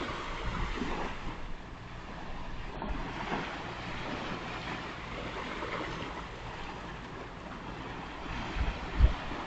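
Surf washing up on a beach in slow swells, with wind rumbling on the microphone and one short low thump near the end.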